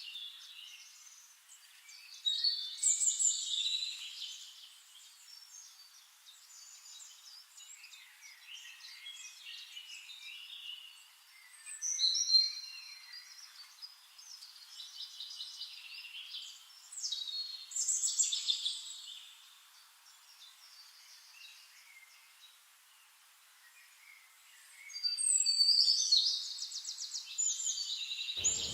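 Songbirds singing and chirping in repeated high phrases, with a fast trill near the end.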